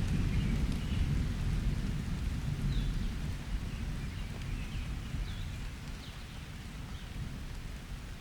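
A low thunder rumble slowly dying away over steady summer rain, with a few faint high chirps now and then.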